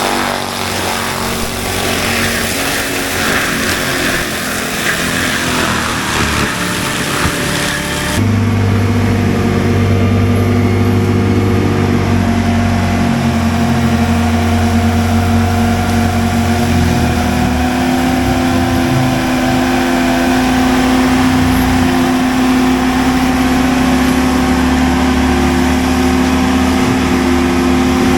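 CAT skid steer with a forestry mulcher head running at full throttle, the engine and spinning mulcher drum droning with a rough grinding noise as it chews through brush. About eight seconds in, the sound changes suddenly to a steadier, heavier drone.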